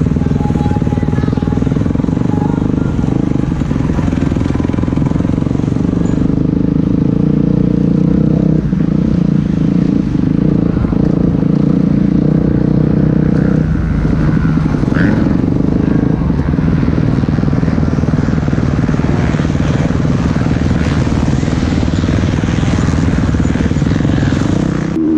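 A motor vehicle engine running at a steady drone.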